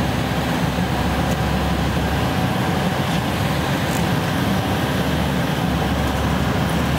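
Steady cabin noise of an Embraer E-190 in its climb after takeoff, heard from inside the passenger cabin: the even hum of its GE CF34-10E turbofan engines, heaviest in the low range.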